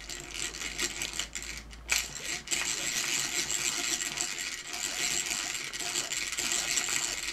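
Hand drill with a 3 mm bit drilling out rivets in metal. After a few clicks, it settles about two and a half seconds in into a steady run of gear noise and the bit cutting.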